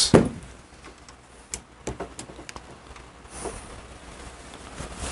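A short sharp sound right at the start, then a few light metallic clicks and taps as a Harley-Davidson Panhead clutch hub is turned on a rivet-setting post to bring the next rivet of the new lining under the hammer.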